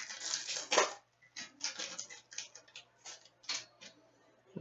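Hockey trading cards being handled: a stack of cards rustles, then a string of short, irregular flicks and clicks as the cards are thumbed through and slid one by one.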